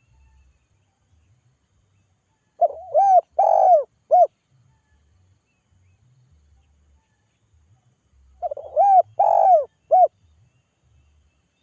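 Spotted dove (tekukur) giving its calling coo: two phrases about six seconds apart, each a quick run of three or four rounded coos.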